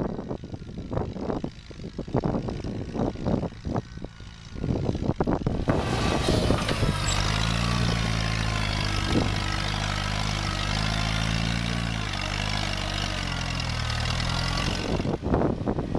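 1954 Farmall Cub's four-cylinder flathead engine running under load, pulling a moldboard plow through sod. For the first five seconds or so it is faint under gusting wind on the microphone; about six seconds in it is heard close up and louder, running steadily with slight dips in pitch.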